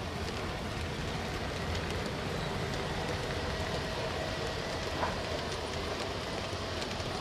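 Piko BR 64 garden-railway model locomotive running along outdoor track hauling a train of passenger coaches under load: a steady rolling rattle of wheels on rail with a faint steady motor whine, and a single click about five seconds in.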